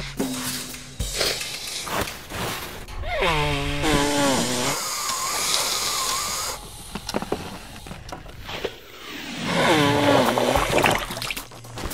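Cartoon sound effects of a sick boy blowing his nose: two long, wavering, pitched blows, one about three seconds in and one about ten seconds in, with a rushing, breathy stretch between them.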